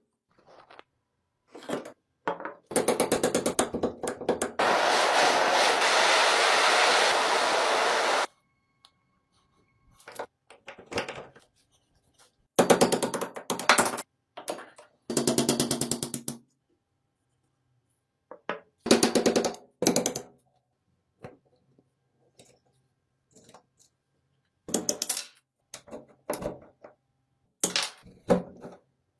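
Bursts of rapid, repeated metal-on-metal working strokes, with one steady, dense power-tool run of about four seconds early on, on parts of a saw-blade tooth sharpening machine being restored.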